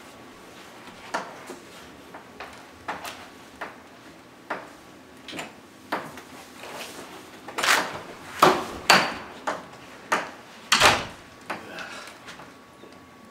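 Hands slapping and clapping together in an elaborate handshake: a string of sharp, irregular slaps, louder and closer together from about eight to eleven seconds in.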